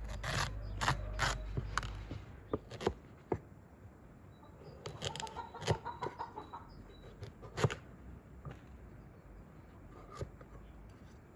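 Kitchen knife cutting through raw pumpkin and knocking on a wooden stump chopping board: a string of sharp, irregular chops, the loudest about two-thirds of the way through. Chickens cluck faintly in the background.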